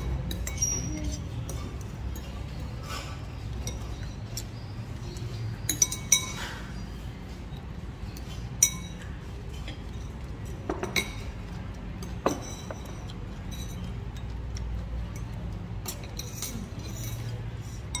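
A metal spoon and chopsticks clinking against a noodle bowl while eating: scattered sharp knocks, the loudest a few together about six seconds in and one near nine seconds, over a steady low hum.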